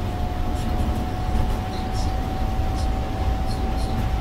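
Cabin noise of a Scania OmniLink three-axle city bus with a biodiesel engine driving along: a steady low engine and road rumble, a whine held at one pitch, and faint scattered rattles.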